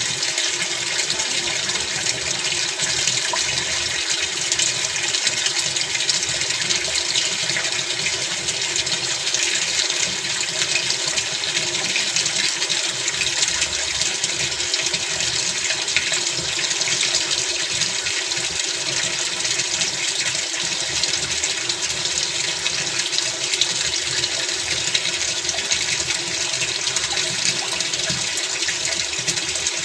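Water running steadily into a top-loading washing machine's drum as it fills for a test run after a gearbox replacement.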